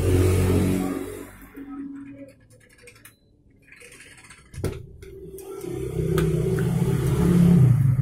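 Low engine rumble of passing street traffic, loud at the start, fading, then building again from just past halfway. About four and a half seconds in, a single sharp click as the glass door is handled and pulled open.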